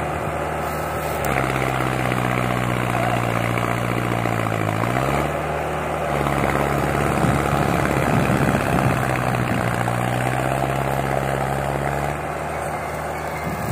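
Diesel engine of a tractor hauling a heavy load of sugarcane, running hard and straining. Its pitch sags and picks back up about five seconds in, with a louder, rougher stretch a few seconds later.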